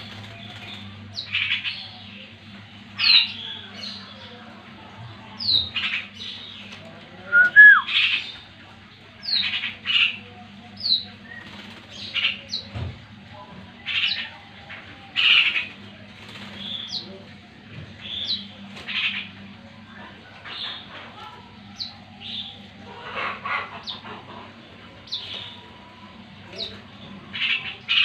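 Caged black-naped orioles calling: short harsh notes and quick down-slurred whistles every second or two, with wing flutters as they hop about the cage. A steady low hum runs underneath.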